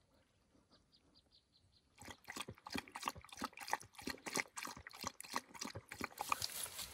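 Quick, irregular run of small wet splashes and clicks, several a second, starting about two seconds in after near quiet.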